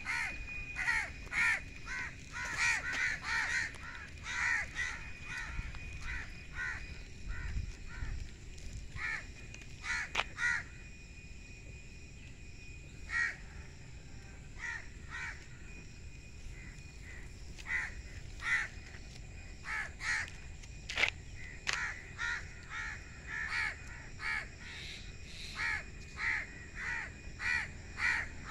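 Birds calling over and over in runs of short calls, with a lull near the middle and a faint steady high tone under the first half.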